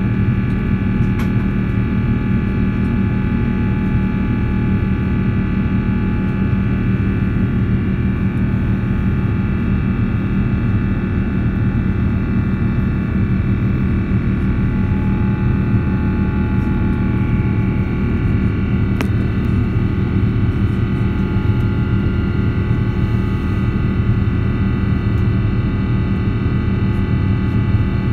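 Rolls-Royce Trent XWB turbofan of an Airbus A350-900 running steadily in the climb after take-off, heard from inside the cabin: an even low rumble with several steady whining tones above it.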